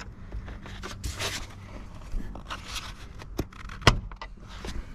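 Hands working the plastic air filter housing and its retaining clips in a car's engine bay: scraping and small clicks, with one sharp click about four seconds in.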